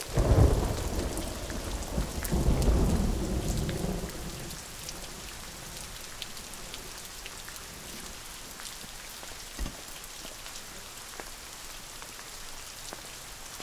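A long roll of thunder rumbling for the first four seconds or so, swelling twice, over steady rain; the rain then carries on alone, with one brief dull knock about ten seconds in.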